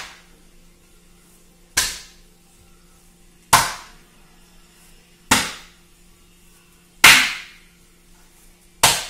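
Thin sheet of oiled parotta dough being stretched and slapped flat onto a kitchen countertop to thin it out: five sharp slaps evenly spaced about a second and three-quarters apart, the fourth the loudest.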